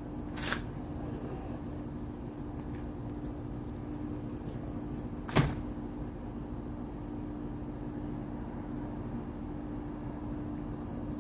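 Steady low hum with a faint high whine, broken by two short knocks: a light one about half a second in and a louder one about five seconds in.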